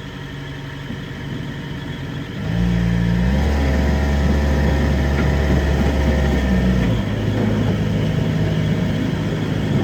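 Engine of a miniature amusement-park train running. About two and a half seconds in, it gets louder and deeper as it pulls harder, then eases off a little at about seven seconds.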